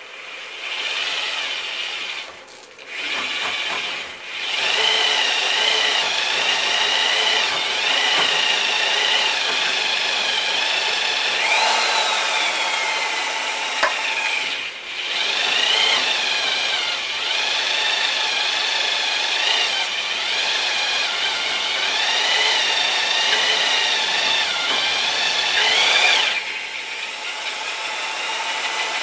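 Corded electric drill driving a bi-metal hole saw through an aluminum frame plate: the motor runs under load while the teeth cut with a ringing squeal that wavers in pitch. The drill stops briefly a few times and runs softer over the last few seconds.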